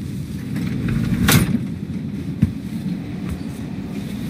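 Steady low rumble of a passenger train running along the rails, heard from inside the compartment. There is a short burst of noise about a second in and a faint click a little later.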